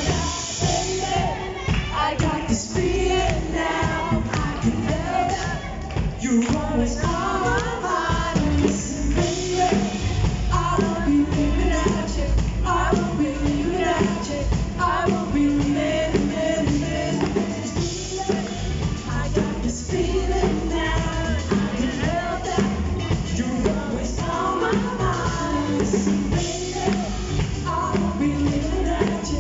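Live rock band playing: a male vocalist singing into a handheld microphone over a drum kit and electric bass guitar, with a steady beat.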